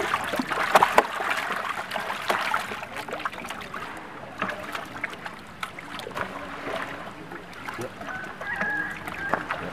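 Water splashing and slapping as live pacu (bawal) thrash in a plastic barrel of water and are grabbed out by hand. The sharp splashes come thickest in the first couple of seconds, then thin out into scattered slaps.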